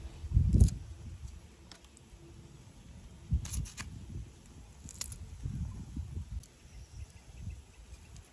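A small knife slicing a green chilli held in the hand, with a few sharp clicks. A loud low thump about half a second in and several softer low thumps.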